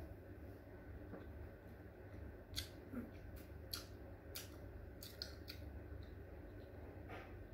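Faint eating noises: a scattering of small, sharp mouth clicks and smacks from chewing while food is picked by hand from a plate, about a dozen over several seconds, over a low steady hum.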